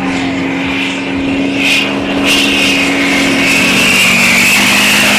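Two Duramax diesel Chevy trucks running hard down a drag lane at full throttle, a loud steady engine drone with a high whine coming in about two seconds in.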